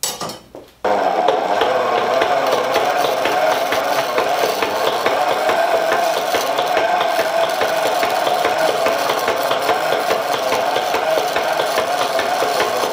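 Flat chisel scraping the spinning wooden mallet head on a foot-powered treadle lathe: a steady rasping cut with a fine rattling chatter, starting about a second in. The cut is taking down a slight hump to get the hitting surface flat.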